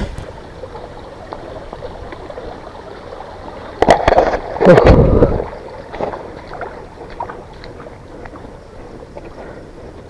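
Water sloshing and splashing, as of feet wading through a shallow stream, over a steady background of running water; a louder burst of splashing about four to five seconds in.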